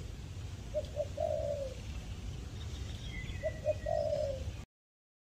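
Spotted dove cooing: two calls about three seconds apart, each two short coos followed by a longer falling coo. A faint higher-pitched bird chirp comes between them, over a low background rumble, and the sound cuts off suddenly near the end.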